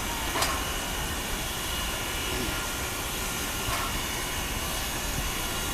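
P36 steam locomotive at the platform, a steady hiss of escaping steam over the engine's running noise, with a couple of faint short clicks.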